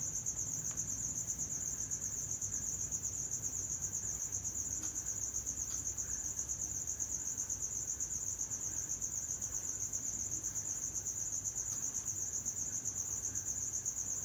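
An insect's continuous high-pitched trill, pulsing rapidly and evenly without a break.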